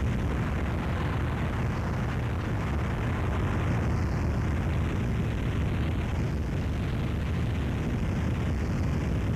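Harsh noise wall from a cassette: a dense, unbroken wall of static noise, heaviest in the low end, with a slow wavering in its upper hiss.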